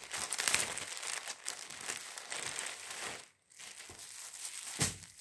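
Clear plastic polybag crinkling and rustling as a folded shirt is taken out of it, with a short lull a little after three seconds. Near the end there is a short thump.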